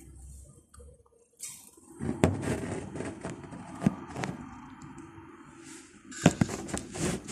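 Handling noise from a phone being repositioned on a counter: a few sharp knocks and clicks with rubbing and scraping as a hand and sleeve brush over the microphone.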